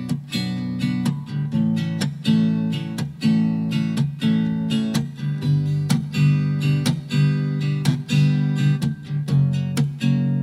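Background music: a guitar strumming chords in a steady rhythm.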